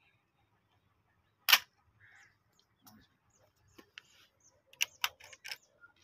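A single shotgun shot about one and a half seconds in, followed near the end by a quick run of sharp clicks.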